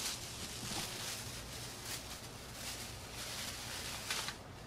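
Irregular soft rustling and scraping from hands working a raw blue crab on a plastic cutting board, with a sharper rustle about four seconds in, over a steady low hum.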